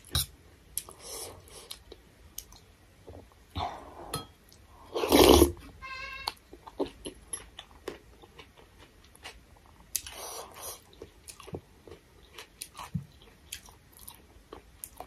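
Close-miked eating of thukpa noodle soup: chewing and slurps of broth from a spoon, with small clicks of a steel spoon against a steel bowl. The loudest slurp comes about five seconds in, another about ten seconds in.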